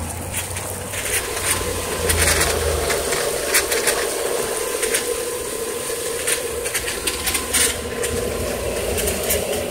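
Swimming-pool pump running with a steady hum, while a thin jet of water sprays from the sand filter's air-relief valve, hissing with irregular spits.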